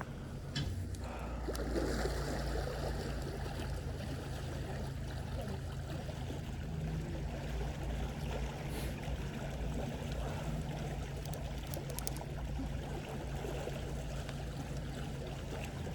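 A boat's engine running steadily with a low rumble, over a steady wash of moving water.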